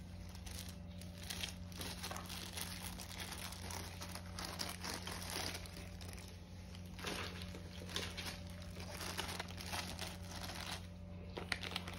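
Clear plastic packaging bags crinkling irregularly as a USB-C cable and charger are handled and set aside, over a steady low hum.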